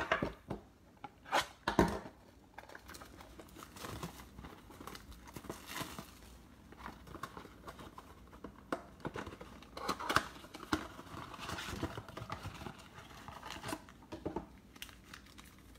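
A cardboard trading-card blaster box being torn open by hand, then the shiny wrapped card packs inside crinkling and rustling as they are pulled out and handled. A few sharp knocks come in the first couple of seconds.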